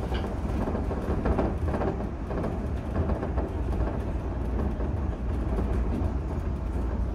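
Shonan Monorail suspended car running along its overhead track: a steady low rumble and running noise from its rubber-tyred bogies in the box beam, heard from inside the front of the car.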